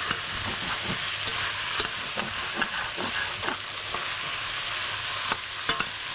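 Fish bones, vegetables and tomato paste sizzling in a stainless steel saucepan as a metal ladle stirs them, with a steady hiss and irregular scrapes and knocks of the ladle on the pan about every half second. The mixture is browning and catching on the bottom of the pan, caramelising before the liquid goes in.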